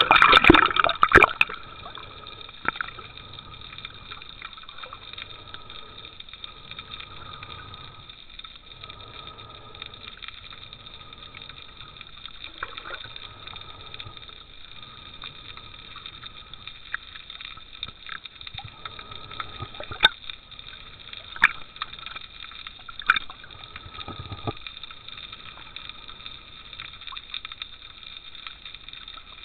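Water splashing as the camera goes under the surface, then muffled underwater ambience with a faint steady whine and occasional sharp clicks.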